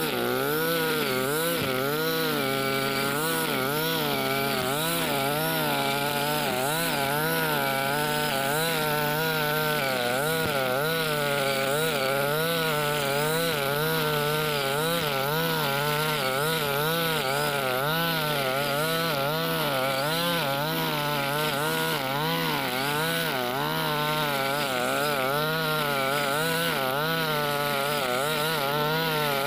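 Husqvarna 542RBS 42cc two-stroke backpack brush cutter running at high revs, its square 2.4 mm nylon line cutting cogon grass. The engine pitch rises and falls in steady waves as the head is swung through the grass under load.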